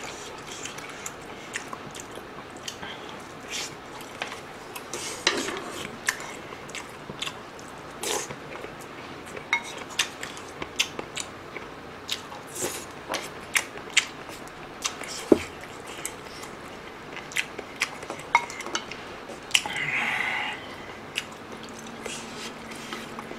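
Close-miked eating sounds: a person chewing mouthfuls of army base stew (budae jjigae) and rice, with many short clicks of the spoon and chopsticks against the pot and dishes.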